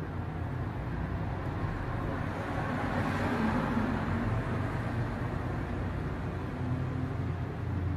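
Steady low rumble and hiss of background noise with a faint hum, swelling briefly about three to four seconds in.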